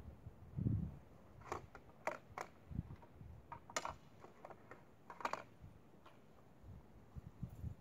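Faint clicks and taps of a scoped rifle being handled at a shooting bench, a few scattered small sharp clicks between a soft low thump near the start; no shot is fired.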